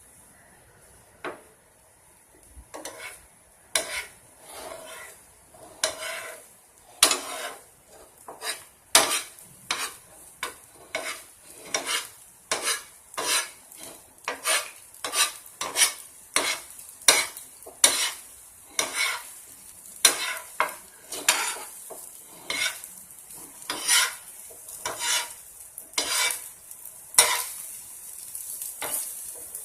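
Egg kalakki mixture being stirred, a metal utensil clicking against the pan or vessel, sparse at first and then steadily about once or twice a second, over a faint sizzle.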